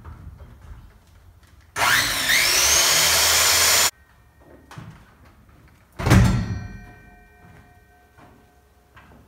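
A handheld power tool runs for about two seconds, its motor whine rising as it spins up, then cuts off. About two seconds later comes a loud clank with a metallic ring that fades over a couple of seconds.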